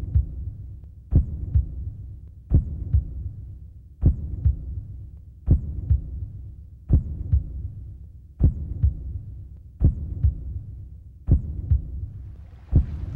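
Heartbeat sound effect: a double thump repeating about every second and a half over a low hum, in a steady rhythm. Rushing water comes in near the end.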